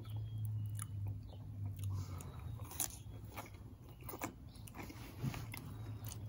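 Close-miked chewing and biting of food picked up by hand, with scattered crunches and small wet mouth clicks and finger-licking smacks.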